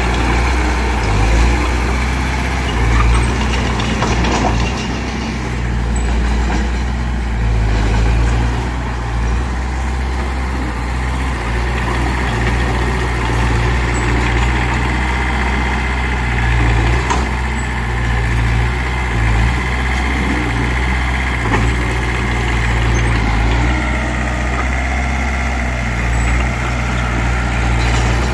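Mitsubishi BD2F bulldozer's diesel engine running steadily as it works, its pitch easing up and down a little. From about halfway in, a thin steady whine sits above it.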